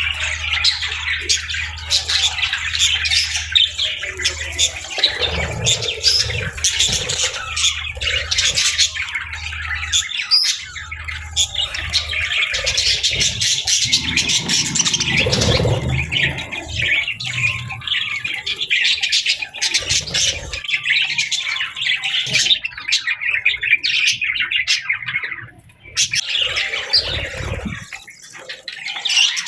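A flock of budgerigars (budgies) chattering and chirping continuously in a fast, dense warble with occasional squawks. A low hum sits underneath at times, and the chatter lulls briefly near the end.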